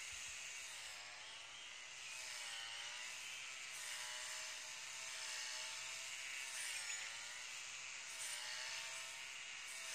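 Brush cutter running with a steady high whine. Its pitch sags and recovers several times as the engine slows under the load of the blade cutting grass.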